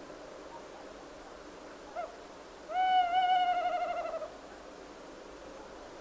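Tawny owl's hoot: a brief note about two seconds in, then a long tremulous note that quavers and slowly falls in pitch.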